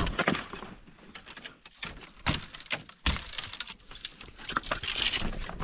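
Dry dead branches rustling and cracking as a stick is pulled and broken out of a tangle of brush, with irregular sharp snaps, the loudest about three seconds in.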